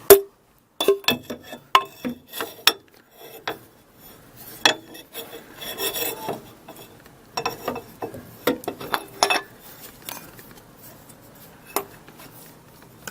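Irregular metallic clicks, knocks and scraping as a steel crankshaft pulley is worked onto the keyed crankshaft nose of a VAZ-2107 engine.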